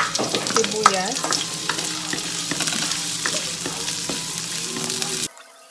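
Sliced red onions hitting hot oil with garlic in a wok and sizzling, stirred with a wooden spatula that scrapes and clicks against the metal; a sharp knock as the onions are knocked in from the bowl. The sizzling cuts off suddenly near the end.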